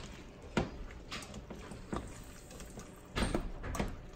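A spoon stirring pasta in a thick cream cheese sauce in a stainless steel pot, with scattered knocks and scrapes against the pot's side. A quick cluster of them comes a little after three seconds in.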